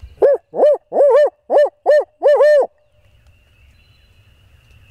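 Barred owl hooting in the 'who cooks for you' rhythm, very loud and close, most likely a hunter's owl locator call used before dawn to get gobblers to shock gobble. About eight rising-and-falling hoots come in the first two and a half seconds, ending in a drawn-out double note, then it stops.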